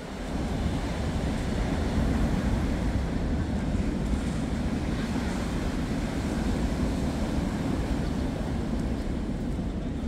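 Rough winter surf breaking and washing up a sandy beach in a steady, continuous rush, with wind rumbling on the microphone.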